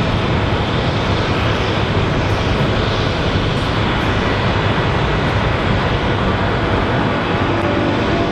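Airbus A380-842's four Rolls-Royce Trent 900 turbofan engines at takeoff thrust: a loud, steady, even jet noise with no breaks.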